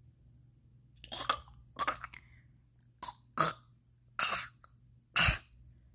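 A person making play-acted coughing and throat-clearing sounds, about six short coughs starting about a second in, as if bringing something up.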